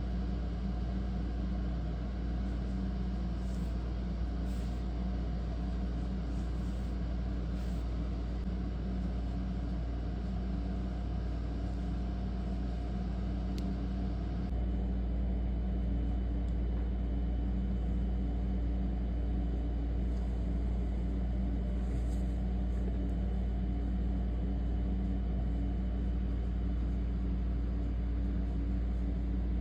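Steady low rumble with a constant hum, stepping up slightly in level about halfway through.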